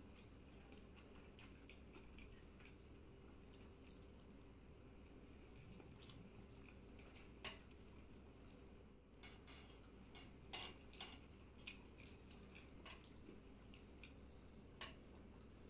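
Quiet eating sounds: faint chewing with scattered light clicks of a metal fork against a plate, over a low steady hum. Most of the clicks fall in the second half.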